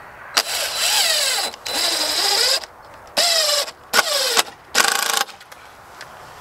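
Power drill driving screws that fix a wire bracket to a wooden fence post, run in five short bursts of the trigger. The motor's whine drops in pitch as the screw bites and climbs again as it frees up.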